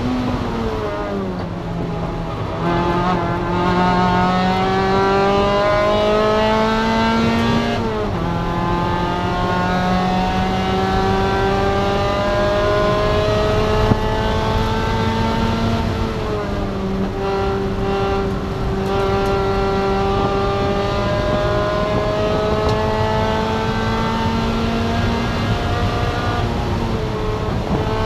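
Spec MX-5 race car's 2.0-litre four-cylinder engine running hard under racing load. Its pitch climbs slowly through long pulls and drops sharply at gear changes or lifts about 8 and 16 seconds in, then climbs again.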